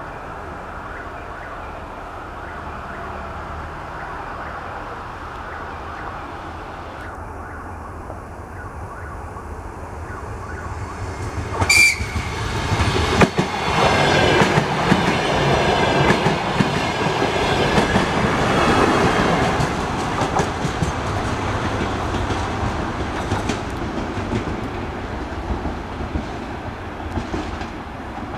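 Passenger train approaching and running past close by at speed, wheels and carriages rushing over the rails. The noise builds, is loudest as the coaches go by from about twelve to twenty seconds in, then fades as the train draws away. A brief sharp high note sounds just before the loudest part.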